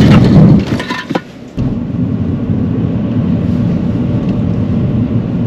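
Car cabin noise from a learner car during an emergency-stop exercise. The loudest part, in the first half-second, comes as the car is braked hard to a stop. After a brief drop about a second and a half in, a steady low rumble of engine and road noise runs on.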